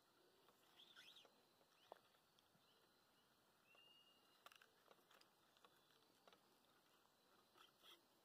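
Near silence: faint outdoor quiet by a river, with scattered short, faint bird chirps and a few small ticks.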